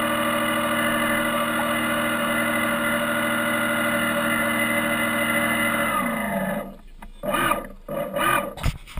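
Drive motor of a radio-controlled model trawler, heard from on board, running with a steady whine. About six seconds in it winds down, the pitch falling, and stops. A couple of short rough noises follow near the end.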